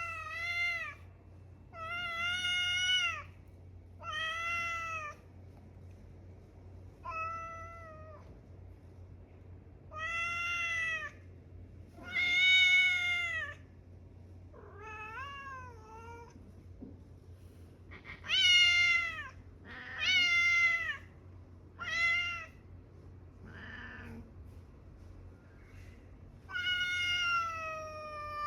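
Stray cat meowing over and over, about a dozen drawn-out meows roughly every two seconds, each rising and falling in pitch, over a faint steady low hum.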